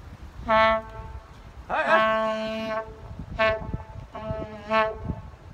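Diesel locomotive air horn sounding a chord in four blasts: short, long, short, then a little longer, the second blast rising slightly in pitch as it starts.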